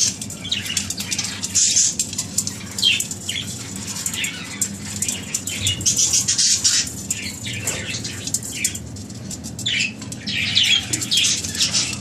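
Budgerigars calling: many short, scratchy high-pitched chirps in quick succession, from the chicks being handled and the budgies around them.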